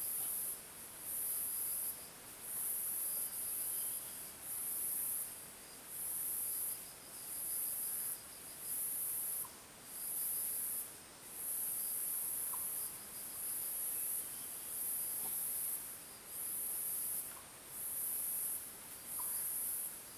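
Insects buzzing: a high-pitched chorus pulsing in bursts of about a second with short gaps between, over a fainter rapid trill from another insect. A few faint small ticks sound here and there.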